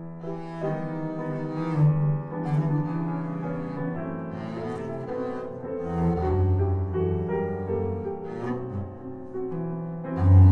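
Instrumental break: piano playing with an upright wood bass holding long, low notes beneath it.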